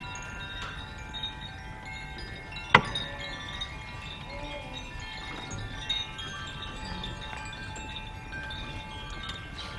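Singing bowls and crystal bowls ringing together in a dense wash of many steady overlapping tones. A sharp strike lands about three seconds in, the loudest sound, with a few lighter strikes later.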